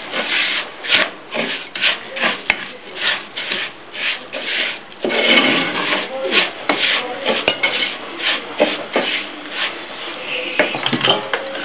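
Wooden spoon stirring grainy bulgur with onion and pepper paste in a non-stick pot: rapid repeated scraping strokes, a few per second.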